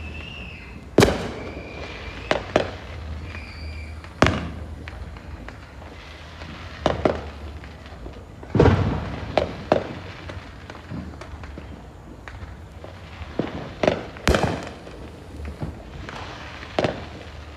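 Neighbourhood fireworks going off all around: sharp bangs and crackling pops at irregular intervals, some loud and close, others fainter and farther off, over a steady low rumble.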